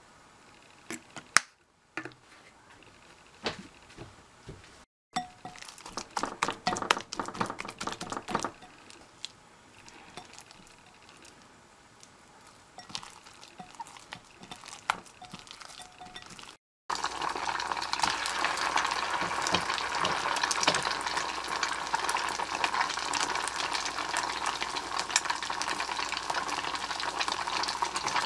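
Fish paste being mixed and kneaded by hand in a glass bowl, with scattered clicks and squelches. About two-thirds of the way in, this gives way to hot oil sizzling steadily and loudly as balls of satsuma-age fish paste deep-fry in a pan.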